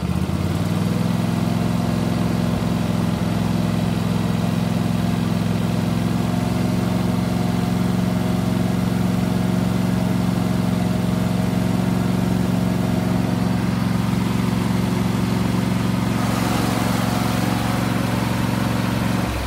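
John Deere LA120 Automatic lawn tractor engine running steadily, its note stepping up a little just after the start. Near the end a hissing rush joins it, and then the engine note drops off suddenly.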